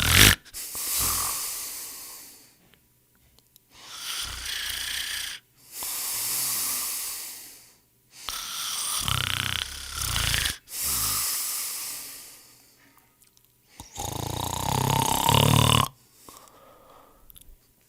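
A person snoring in slow cycles about every four to five seconds: a rattling snore on each breath in, then a long airy breath out.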